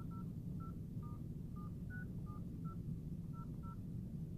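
iPhone XR dial-pad key tones: about ten short touch-tone beeps at an uneven pace as the star code *5005*7672… is typed on the emergency-call keypad, the code that starts the R-SIM unlock.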